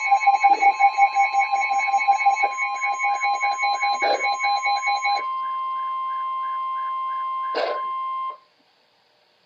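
Emergency alert tones for a tornado warning: a fast electronic beeping, about four beeps a second, over a steady high tone. The beeping stops about five seconds in, and the steady tones carry on until they cut off suddenly a little after eight seconds, with two short crackles along the way.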